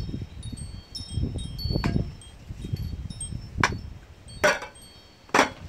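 Wind chimes tinkling with light high notes, over wind rumble on the microphone in the first couple of seconds. About four sharp clicks and knocks of small objects being handled on a table, the loudest sounds, come in the second half.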